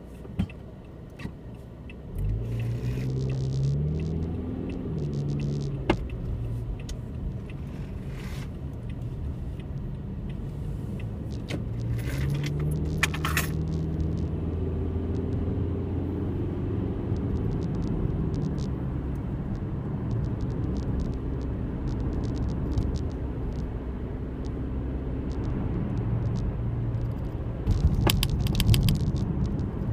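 Car engine starting up about two seconds in, then running as the car pulls away, its pitch rising and falling back twice as it speeds up and changes gear, with light rattling and clicking, like keys jangling.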